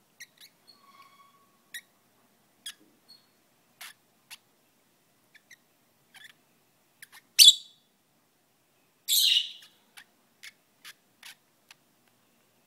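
Pet lovebird making light clicking and tapping sounds, with two loud shrill calls: a short sharp chirp and then a longer, harsher screech about two seconds later.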